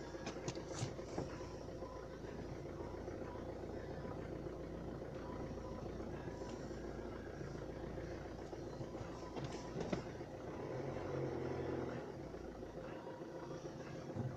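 Ford Fiesta 1.4 TDCi four-cylinder diesel engine running steadily, giving the abnormal engine noise its owner is asking about. A few sharp clicks come near the start and about ten seconds in, and the sound swells briefly about eleven seconds in.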